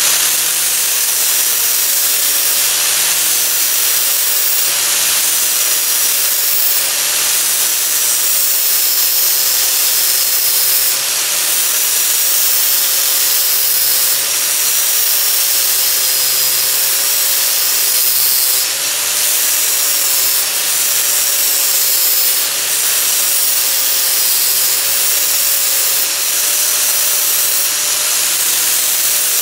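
Angle grinder running steadily with its disc ground against a weld bead on steel plate, grinding the built-up weld down. The motor's whine sags a little now and then as the disc is pressed into the metal, then recovers.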